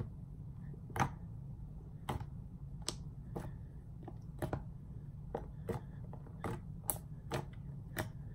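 Homemade glitter slime being squeezed and poked by hand, giving over a dozen sharp wet clicks and pops at irregular intervals, about every half second to a second, over a steady low hum from an air conditioner.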